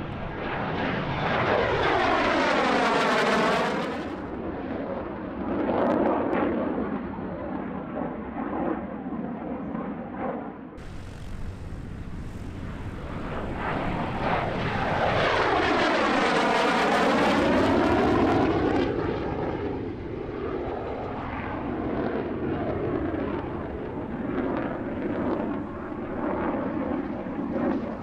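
MiG-17 jet fighter's turbojet passing twice at low altitude, each pass swelling to a loud, sweeping, phasing whoosh and then fading. There is an abrupt cut between the passes about eleven seconds in.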